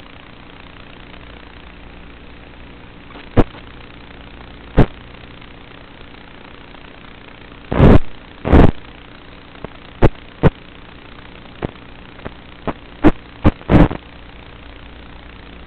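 Onboard audio from an FPV flying wing's video transmitter: a steady drone from the electric pusher motor, broken by about a dozen sharp, loud crackles and pops. The longest two come about eight seconds in, and a quick cluster follows near the end.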